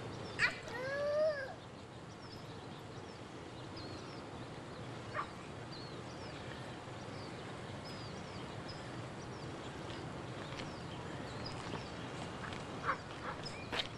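Small birds chirping in short, repeated, high falling notes, over a steady hiss. About half a second in, a click is followed by a brief rising-and-falling squeak, and a few more clicks come later.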